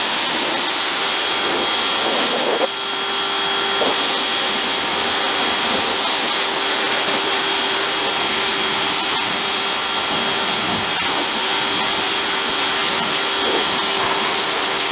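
Pressure washer running and spraying a steady jet of water, rinsing snow foam off a car's paint: a continuous hiss with a steady high whistle, and a lower hum that joins a few seconds in.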